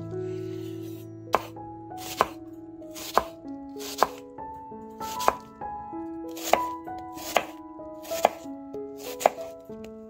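Chef's knife slicing a red onion on a wooden cutting board: crisp knife strikes on the board about once a second, over soft background music.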